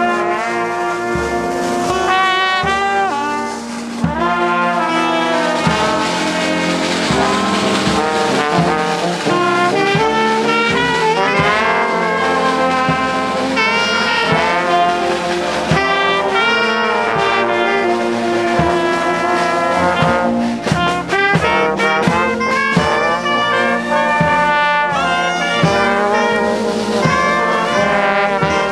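Street brass band of saxophones, trombones, trumpets and a sousaphone playing a march while walking, with a steady low beat under the horns.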